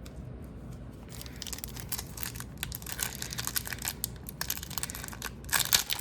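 Wrapper of a hockey card pack crinkling and being torn open by hand: a dense run of crackles that starts about a second in and grows loudest near the end.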